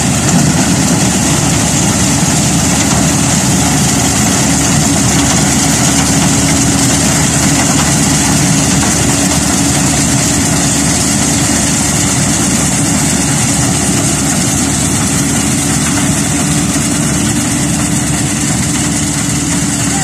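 Combine harvester running while harvesting rice: a loud, steady engine and threshing-machinery drone with a constant hum that does not change.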